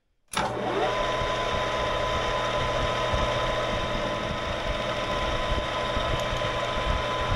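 Metal lathe running, its chuck spinning a hardened-steel Ford 8.8 differential cross pin while a flat spot is cut into it. The machine noise starts abruptly just after the start, and a steady high whine joins it about a second in.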